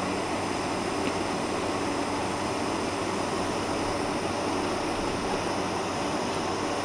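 Cabin noise inside a Boeing 747-400 taxiing, heard from a window seat over the wing: its four jet engines at taxi power and the cabin air make a steady rushing hum with faint steady tones in it.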